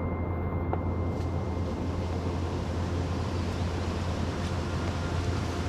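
Steady wind noise buffeting the camera's microphone outdoors, a constant low rumble with a hiss that grows fuller about a second in.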